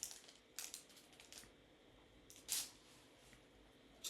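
Faint rustling of paper as Bible pages are turned to find a passage: a few short soft swishes, the loudest about two and a half seconds in.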